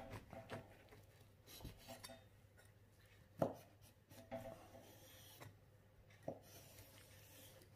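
A knife sawing through the baked crust of a pie on a wooden cutting board: faint, crackly rasping scrapes, with a sharper click about three and a half seconds in.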